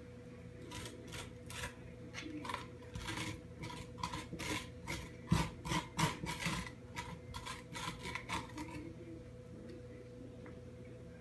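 Metal spoon scraping seeds and stringy pulp out of a halved raw spaghetti squash: a run of short scraping strokes, with a knock about five seconds in, stopping about nine seconds in.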